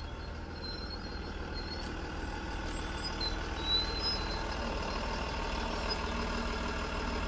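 FedEx delivery truck's engine idling right beside the car, a steady low rumble heard from inside the cabin that is really loud and obnoxious.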